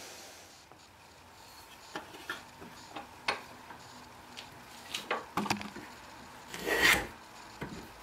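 Hand-tool strokes scraping and shaving a pine block clamped in a vise, taking 2–3 mm off its base. A few short, light strokes are followed by one longer, louder stroke about seven seconds in.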